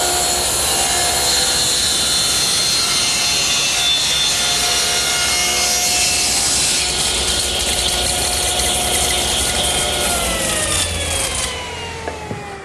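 Table saw running and ripping a taper along a square wooden leg blank fed through a taper jig. About ten seconds in the saw is switched off and its whine falls steadily as the blade spins down.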